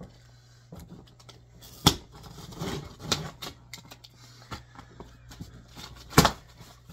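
Clicking of a utility knife being handled and cardboard being worked as a speaker box is cut open. There are scrapes and rustles, with two sharp knocks: one near two seconds in and a louder one just after six seconds.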